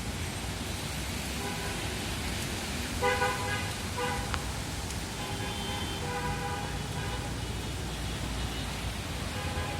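Steady rain hiss, with several short horn-like pitched toots over it; the loudest comes about three seconds in, with more around four seconds, between five and seven seconds, and near the end.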